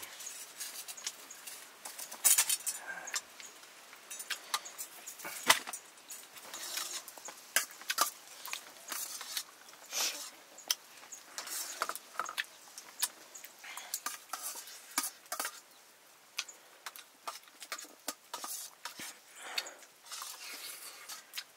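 Metal cooking pots and utensils clinking and scraping, many short irregular knocks and scrapes.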